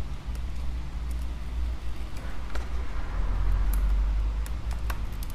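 Low steady hum that swells for a moment in the middle, with scattered small sharp clicks and cracks as shattered iPad Air glass is pried away from the frame with a pick.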